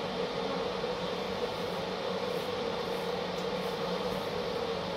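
Steady mechanical hum with an even hiss underneath, holding one low pitch throughout, in a small room.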